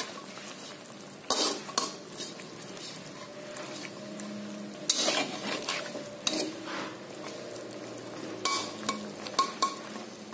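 Metal spatula scraping and clinking against a metal wok as fish pieces are stirred in a thick spiced sauce, with the sauce sizzling and simmering underneath. The sharp scrapes come in a few short clusters, about a second in, midway, and again near the end.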